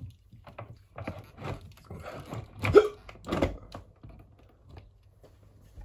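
A bedroom window being opened: a run of clicks and knocks from its handle and latch, the loudest a sharp knock nearly three seconds in, followed by another about half a second later.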